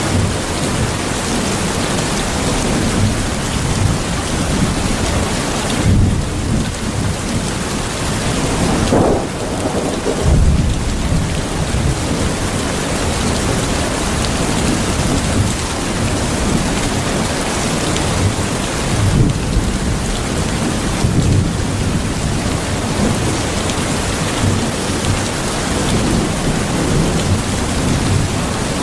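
Steady rain with low rolls of thunder swelling up several times, the strongest about ten seconds in and again around twenty seconds.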